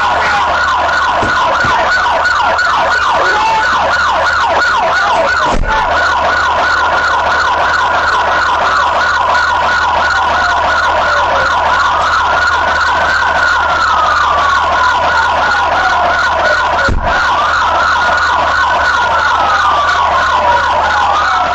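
Police car sirens: a rapid repeating yelp with slower rising-and-falling wails over it from about halfway in. The sound cuts out briefly twice.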